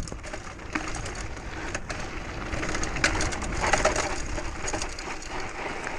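Mountain bike rolling over a rocky, gravelly trail: the tyres crunch on stones and the bike rattles with many small clicks and knocks.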